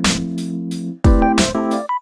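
Background music: sustained synthesizer and electric-piano chords over a steady drum beat, with a brief break about halfway through.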